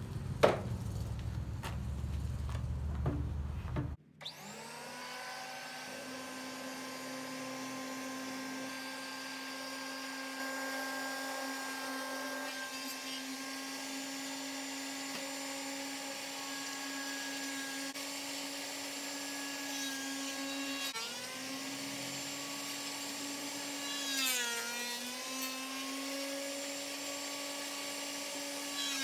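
WEN benchtop thickness planer running at speed with a steady high motor whine. Twice in the second half the pitch sags briefly and a rasping hiss rises as a board goes through the cutterhead, the motor bogging under the cut. The first few seconds are a low rumble with a single knock before the planer's sound comes in.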